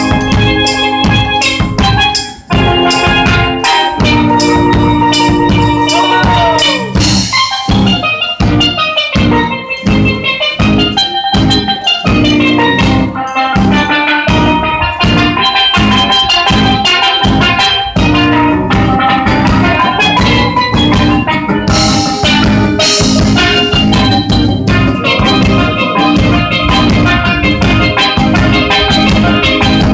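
A steel pan playing a melody of quick ringing notes, backed by a steady bass drum beat and a strummed acoustic guitar.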